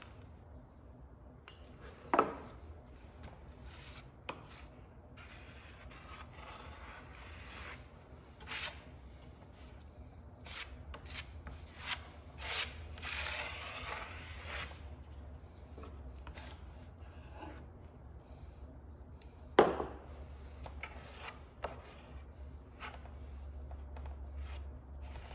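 Plastic spreader scraping and smearing epoxy fairing compound across a plywood rudder blade in uneven strokes, with two sharp knocks, one about two seconds in and a louder one near the end. A low steady hum lies underneath.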